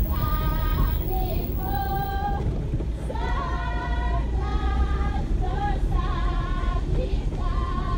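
Passengers singing a song as the car drives, their held notes over the steady low rumble of the car running on a rough dirt track.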